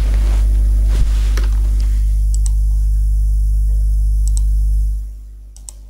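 Steady low electrical hum, with a few light clicks over it, fading out near the end.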